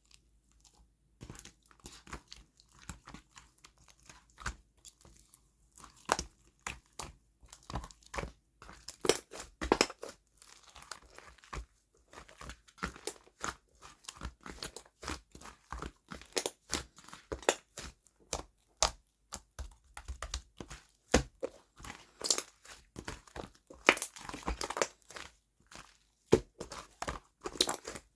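Slime being pressed, poked and stretched by hand, giving off an irregular stream of sticky pops, clicks and crackles that starts about a second in.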